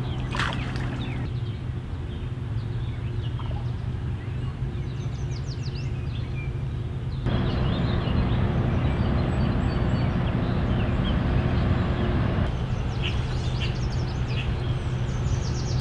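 Birds chirping now and then over a steady low hum of outdoor background noise. The background changes abruptly a few times, with a louder hiss for about five seconds in the middle.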